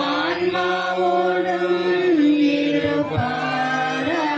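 Congregation chanting the sung response to the priest's greeting at Mass, several voices on slow, held notes that step in pitch.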